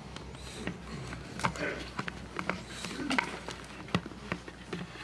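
Hymnal pages turning and rustling in a congregation, with scattered small knocks and clicks and brief faint murmuring.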